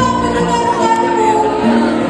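Girls' choir singing long, steady held notes.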